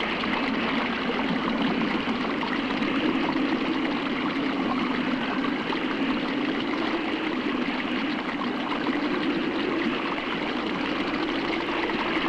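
Running water of a mountain stream, a steady rushing.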